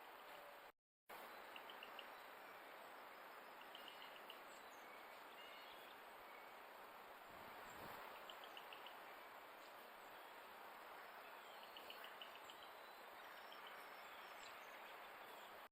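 Faint insects chirping in short, quick trills every few seconds over the steady hiss of a trail camera's microphone.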